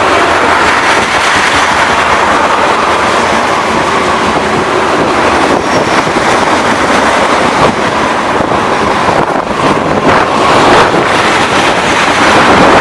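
Freight train of tank cars rolling past, a loud steady rush of wheels on rail, with wind buffeting the microphone.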